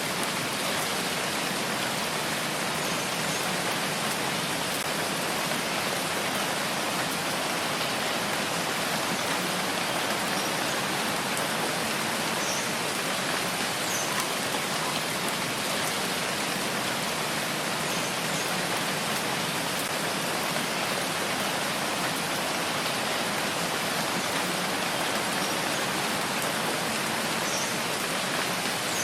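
Steady rain falling, an even hiss of many drops with a few faint individual drop ticks.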